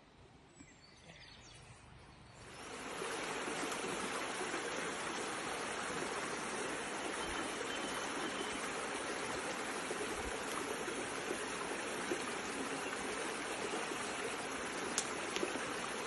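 Shallow rocky stream running over stones, a steady water noise that comes in after about two and a half seconds of near silence.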